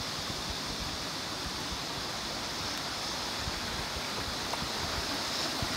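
Steady rush of a small stream's water flowing over rocks.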